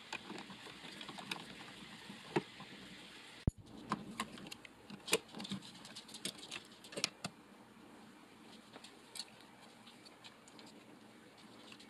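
Faint scattered clicks and metallic taps of a screwdriver on the mounting screws of wall light switches, and of the switches being pulled out of their metal electrical box on their wires. The clicks are thickest in the first seven seconds and thin out after.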